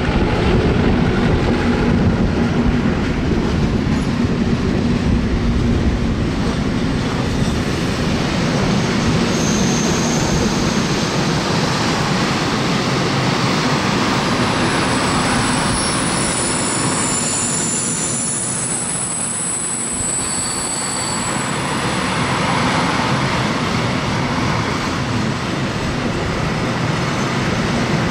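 A Slovenian series 664 (EMD G26) diesel locomotive running close by at the head of a long freight train, then a long string of open freight wagons rolling past with steady wheel-on-rail noise. High thin wheel squeal comes and goes through the middle.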